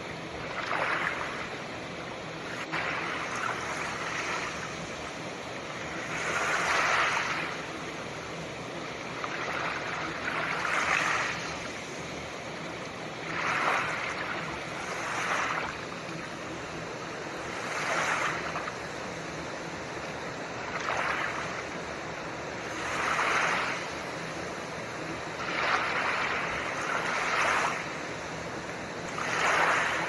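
Soft ocean waves washing in and out, a swell about every two to three seconds, over a steady blue-noise hiss.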